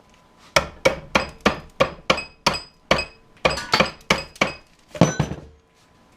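A hammer striking the metal parts of a laptop power supply in a steady series of about fifteen blows, roughly three a second, each with a short metallic ring.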